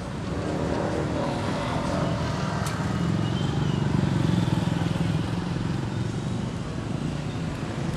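A motor engine running with a steady low hum, swelling to its loudest about four seconds in and easing off afterwards.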